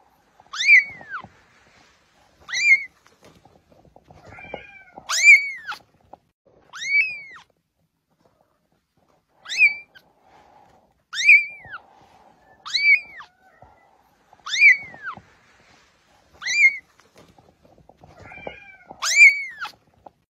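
Young kitten mewing repeatedly: about ten short, high calls roughly every two seconds, each rising then falling in pitch.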